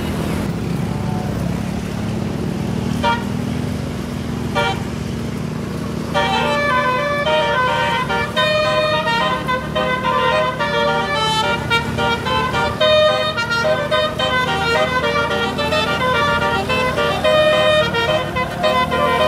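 Tour bus engine running, with two short horn toots about three and four and a half seconds in. From about six seconds in, a multi-tone 'telolet' air horn plays a fast tune of rapidly changing notes.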